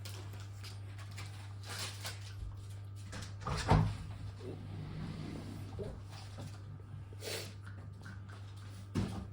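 A sharp knock a little under four seconds in, like something hard set down or struck on a table, with a few lighter clicks and another knock near the end, over a steady low hum.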